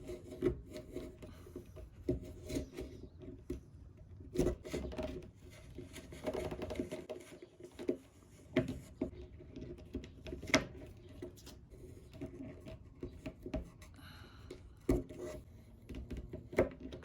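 A sharp blade scraping and cutting through cured fibreglass cloth on a surfboard, in irregular strokes with sharp clicks. The cloth is fully hardened and hard to cut. A faint steady hum runs underneath.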